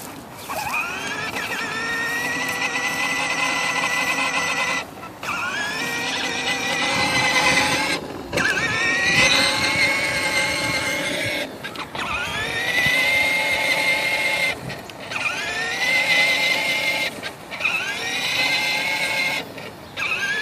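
Electric motor and gearbox of a battery-powered ride-on toy truck whining as it drives. The whine cuts out about six times and each time starts again, rising in pitch as the motor gets up to speed, as the pedal is let off and pressed again.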